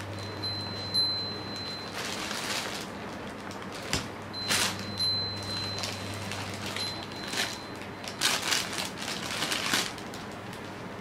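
Nylon fabric of a cat tunnel rustling in several bursts as a cat wriggles about inside it, loudest about eight to ten seconds in. A thin high ringing tone comes and goes.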